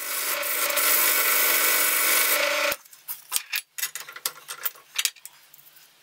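Sandpaper rubbing against a plywood knob spinning in a drill press chuck, over the steady hum of the drill press. It stops abruptly a little under three seconds in and is followed by a few light clicks and knocks.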